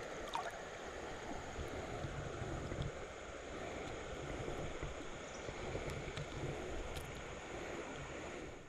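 Steady rushing and gurgling of shallow river water around the wader, with a few faint clicks and small splashes.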